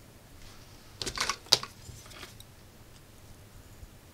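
Small plastic and metal parts of a disassembled arc lighter being handled. About a second in comes a short run of light clicks and scraping, ending in one sharp click.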